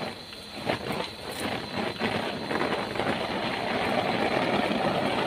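Heavy rain falling on a plastic shelter, a steady hiss that grows louder about two seconds in, with a few faint taps in the first moments.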